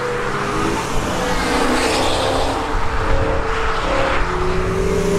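Engines of several sports cars running and accelerating one after another, their engine notes rising and falling and overlapping.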